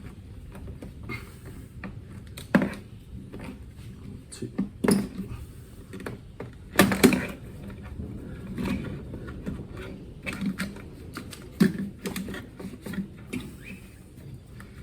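Irregular knocks, clunks and clicks as a Mercedes C250's airbox is tugged and worked by hand to free it, a few louder knocks standing out, the loudest about seven seconds in.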